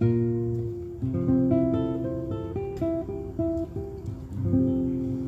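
Acoustic guitar playing slowly: a held chord, then single picked notes from about a second in, then another chord near the end.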